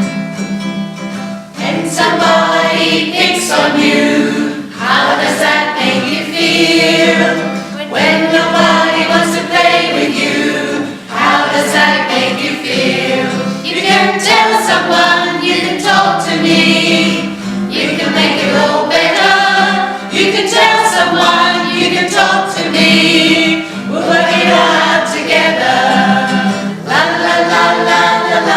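A group of voices singing a children's song together, in sung phrases about two seconds long, over a strummed acoustic guitar.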